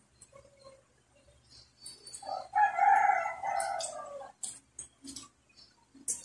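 A rooster crowing once: a single drawn-out call of about two seconds, starting a little over two seconds in. Short clicks and smacks of eating come before and after it.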